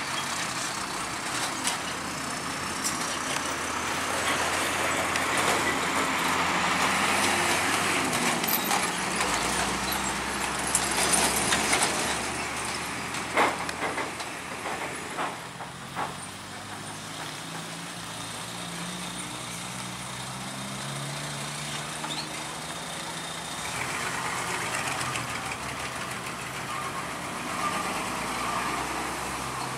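Heavy diesel trucks driving slowly over a railway level crossing, engines running under load, with a few sharp knocks in the middle as they jolt over the rails.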